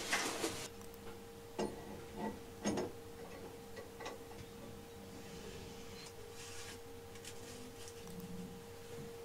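Steel straight edges and screw clamps being handled on a surface plate: a short scrape, then a few light metal clicks and knocks in the first four seconds, with faint rustling afterwards. A faint steady hum runs underneath.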